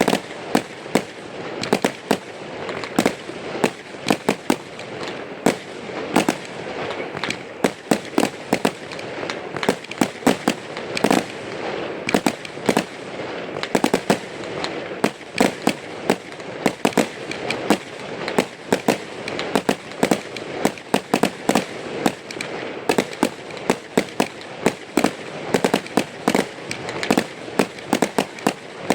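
Aerial fireworks display: a rapid, irregular run of shell bursts and sharp reports, several a second, over a continuous crackle.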